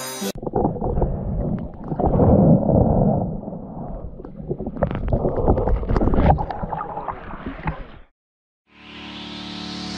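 Shallow sea water sloshing and gurgling around a microphone at or just under the surface, with irregular knocks and clicks, which cuts off abruptly about eight seconds in. Near the end a steady musical chord swells up.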